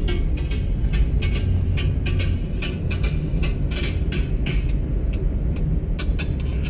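Road and engine noise inside a moving Hyundai car's cabin: a steady low rumble with frequent, irregular small clicks and rattles over it.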